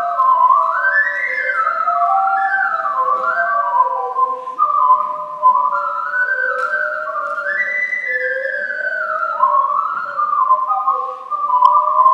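Duet of two ocarinas: a higher melody and a lower harmony part, clear and pure in tone, moving together in quick stepwise runs with brief breaths between phrases.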